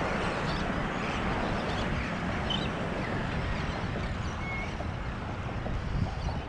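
Steady wind rushing over the microphone, with choppy water lapping close by.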